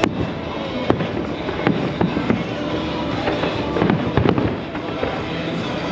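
Fireworks display: a continuous rumble and crackle of shells bursting, with sharp single bangs standing out every second or so.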